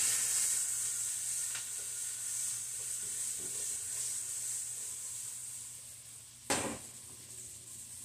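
Steak sizzling in a nonstick skillet, the sizzle fading as the pan is lifted off the burner and tossed. About six and a half seconds in, one sharp knock as the pan is set back down on the glass-top stove.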